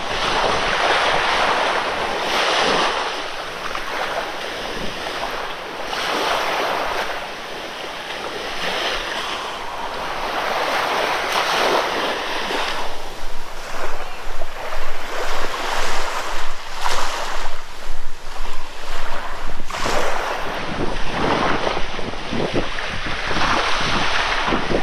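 Surf washing onto a sandy beach in slow swells, with wind on the microphone. From about halfway through, a quick, regular pulsing rustle joins in, a bit more than one a second.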